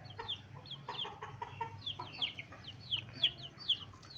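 Young game-fowl chicks peeping: a quick run of short, high, falling chirps, several a second, from more than one chick.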